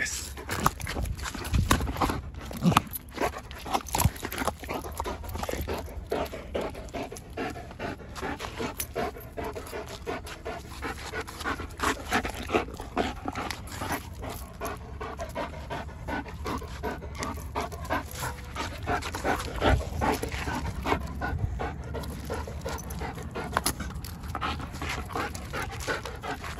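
German Shepherd panting while tugging on a rope ball toy, with many small knocks and scuffs from the tug throughout.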